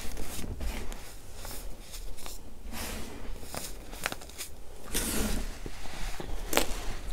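Hands squeezing and crumbling a heap of powdery baking soda: a run of soft, irregular crunches, with a longer, louder crunch about five seconds in and a sharp one near the end.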